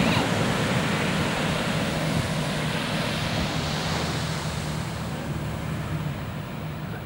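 Steady rush of ocean surf with wind on the microphone, easing a little near the end.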